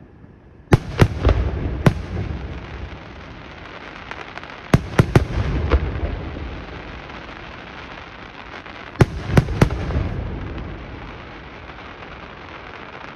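Aerial firework shells bursting in three quick groups of three or four sharp bangs, about four seconds apart, each group followed by a lingering low rumble.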